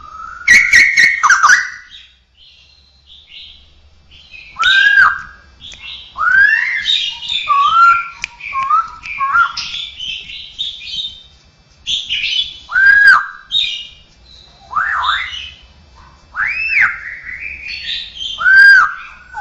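Straw-headed bulbul (cucakrowo) singing loud whistled phrases, with repeated arching notes that rise and fall between rich warbling, in a song trained to include mimicked sounds. A quick run of sharp clicks comes near the start.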